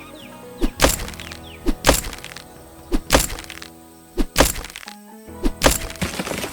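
Background music with sharp percussive hits in pairs: five pairs, evenly spaced about a second and a quarter apart.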